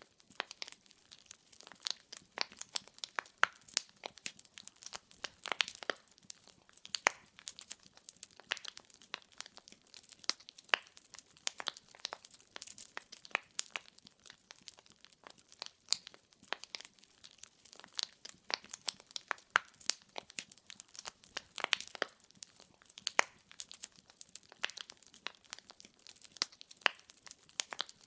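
Wood logs burning in a fireplace, crackling: many sharp irregular pops and snaps over a faint hiss.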